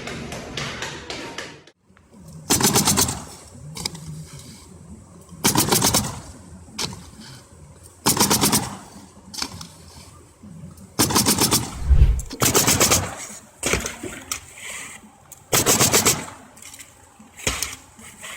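A power tool hammering in short rapid-fire bursts, each under a second long, about seven times, a few seconds apart.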